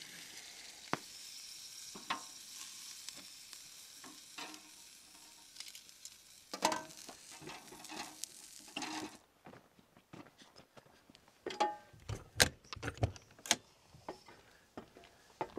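Chicken sizzling as it cooks, with scattered clicks and taps of a utensil against the cookware. The sizzle stops abruptly about nine seconds in, and a few sharper knocks follow.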